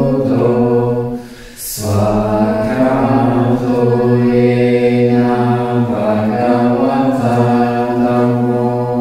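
Slow Buddhist chanting of a mantra, low-pitched voices holding long, drawn-out notes, with a short pause for breath about one and a half seconds in.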